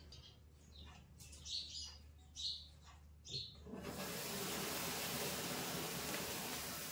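A few short, high chirpy sounds, then a sparkler catches about four seconds in and fizzes with a steady hiss as it throws sparks.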